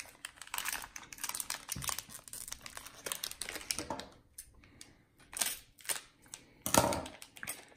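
Plastic snack wrapper crinkling and crackling as it is pulled and twisted by hand, then cut with scissors, with a louder sharp snip near the end.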